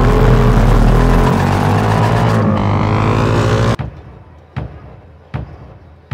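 Racing motorcycle engines revving loudly, their pitch falling away near the end, then cut off suddenly about four seconds in. After that a deep beat thumps about once every three-quarters of a second.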